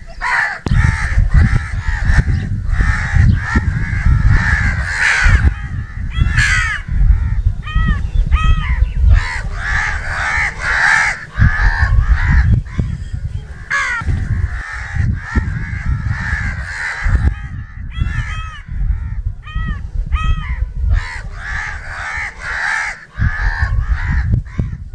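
Several crows cawing over and over, harsh calls in quick series that sometimes overlap, with a couple of short lulls. A steady low rumble runs underneath.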